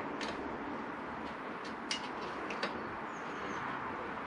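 Scattered light clicks from hand tools as a motorcycle clip-on handlebar clamp bolt is run up to touch, over a steady background hiss.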